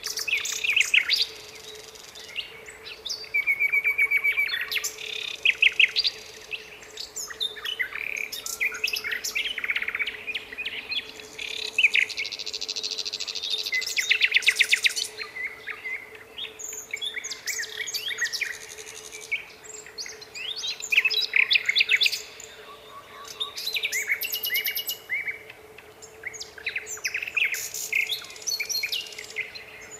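Nightingale singing: loud phrases of rapid repeated notes and trills broken by short pauses, over a faint steady low hum.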